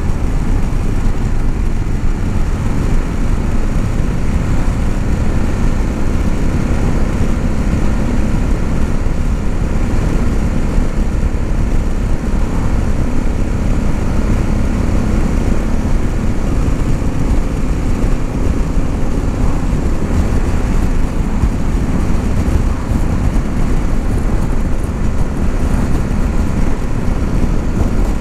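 Steady wind rush on a helmet microphone over the even drone of a Honda CRF1100L Africa Twin's parallel-twin engine, cruising at a constant speed on the open road.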